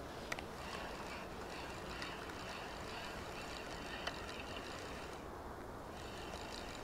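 Spinning reel being wound to take up line, a faint steady whir with a few light clicks that drops out briefly about five seconds in, over a low steady rumble.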